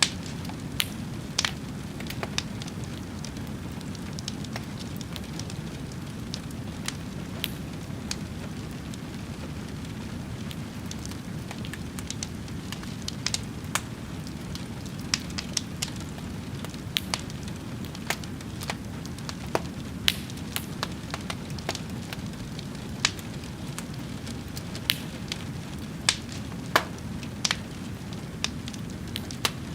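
Wood fire crackling, sharp pops at irregular intervals over a steady low rumble of the flames.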